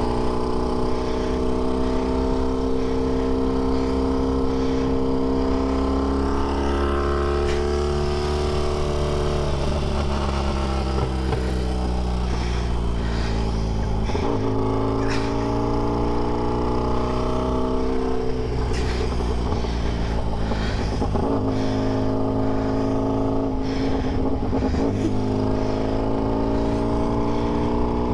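A classic racing sidecar outfit's engine pulling hard on track, its pitch climbing slowly and then dropping away sharply about every four to five seconds.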